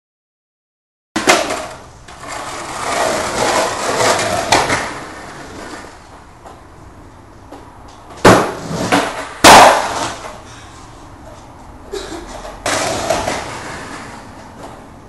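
Skateboard on a wooden table-top ledge during failed backside 180 attempts: wheels rolling rough on the wood, broken by several sharp clattering slaps as the board and feet come down. The loudest slap comes a little past halfway.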